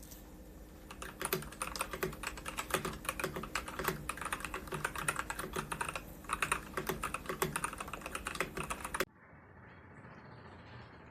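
Fast typing on a ZIYOU K3 full-size mechanical keyboard with red linear switches and ABS double-shot keycaps: a rapid, continuous run of keystroke clacks. There is a brief lull about six seconds in, and the typing stops abruptly about nine seconds in.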